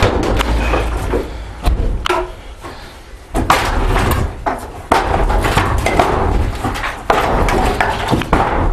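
Wooden wall boards being battered loose from their studs: a series of heavy wooden bangs and thuds at irregular intervals, about eight blows.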